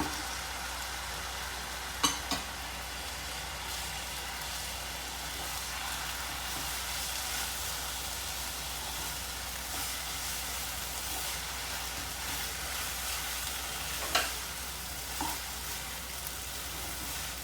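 Fried noodles with freshly added bean sprouts sizzling steadily in a hot pan as they are stirred, with a few sharp clinks of the utensil against the pan: two about two seconds in and two more near the end.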